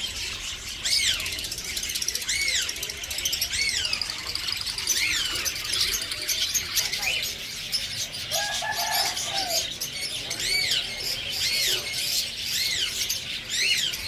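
A cageful of finches and lovebirds chirping together: repeated short calls that rise and fall in pitch, about one a second, over constant twittering.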